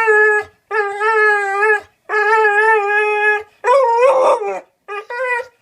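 Pit bull and Australian cattle dog mix giving a run of drawn-out, steady-pitched howls about a second each, with two short ones near the end: its trained 'I love you' trick.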